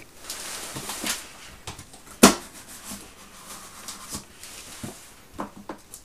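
Cardboard shipping box being handled and opened: rustling and scraping of cardboard, one sharp snap about two seconds in, then scattered small knocks and clicks.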